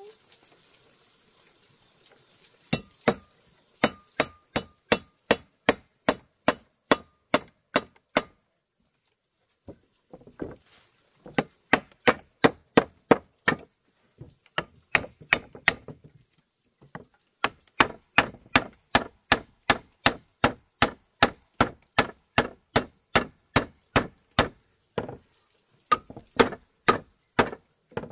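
A hand tool striking over and over in runs of sharp, evenly paced blows, about two or three a second, with short pauses between the runs.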